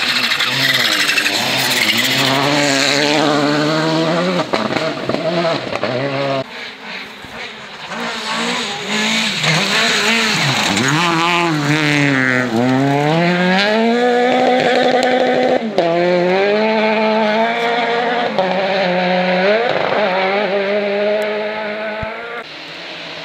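Rally car engines at full throttle on a gravel stage, the revs climbing and dropping again and again through gear changes and corners. A second car's pass follows from about six seconds in, and the sound fades out near the end.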